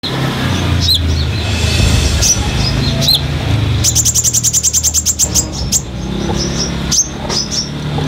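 Sunbird (kolibri) singing: high, thin chirps and flicking calls, with a fast, even trill lasting about a second and a half about four seconds in.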